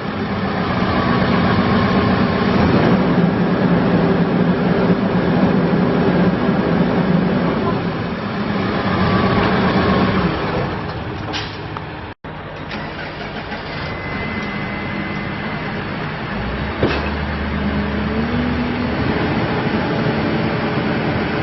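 Case 580N backhoe loader's diesel engine running steadily. Midway there is a sudden cut, after which the engine note is lower, and its speed steps up a little near the end.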